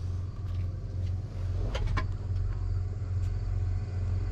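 Tractor engine idling steadily, heard from inside the cab, with a couple of short clicks about two seconds in.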